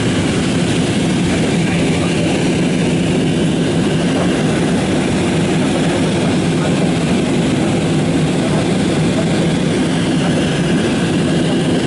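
Steady cabin noise of a jet airliner climbing after takeoff: the engines and rushing air make an even, unbroken low noise.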